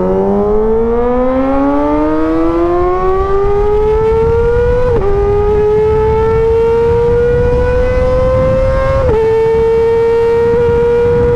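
Kawasaki ZX-25R's 250 cc inline-four engine revving high under hard acceleration, its note climbing steeply, with two quick upshifts, about five seconds and about nine seconds in, that barely drop the pitch before it settles to a steady high-rpm cruise. Wind rush runs underneath.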